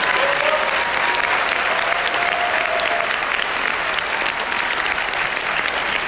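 A large audience applauding, a dense, steady clapping with a few voices calling out in the first half.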